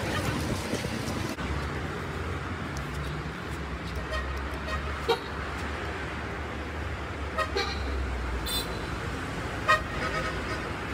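Street traffic: a steady low engine rumble with a few short car-horn toots, the loudest near the end.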